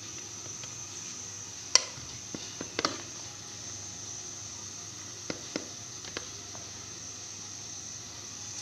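A serving spoon knocks against a plate and hot pot a handful of times as cooked rice is dished out: short sharp clicks and taps over a faint steady hiss.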